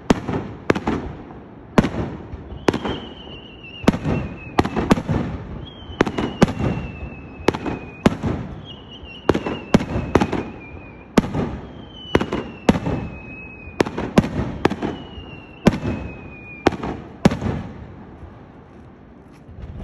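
Close-range aerial fireworks display: a rapid, irregular barrage of very loud bangs and crackling bursts with echo, over and over. A whistle falling in pitch repeats every couple of seconds, and the barrage thins out near the end.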